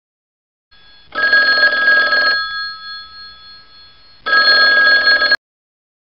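Telephone ringing sound effect: two rings of about a second each, steady ringing tones, the first trailing off before the second starts and the second cutting off sharply.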